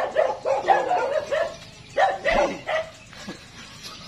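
A dog yapping in a rapid series of short, high-pitched yips and barks, with a short pause about a second and a half in before another burst.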